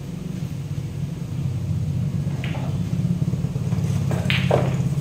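A motor engine running with a steady low rumble that swells in loudness, plus two brief sharper sounds about two and a half and four seconds in.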